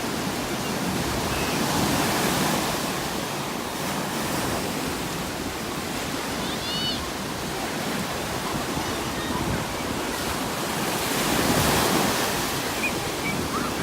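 Ocean waves breaking and washing up the shore, swelling about two seconds in and again near the end.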